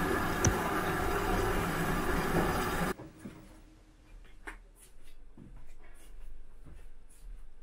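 A loud, steady rushing noise with a low hum cuts off abruptly about three seconds in. After it come faint footsteps and a few light knocks in a quiet room.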